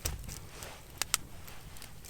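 Two sharp clicks or snaps about a second in, over a steady low rumble.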